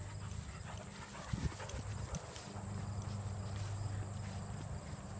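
Soft footfalls on grass over a steady low hum and a thin, steady high whine.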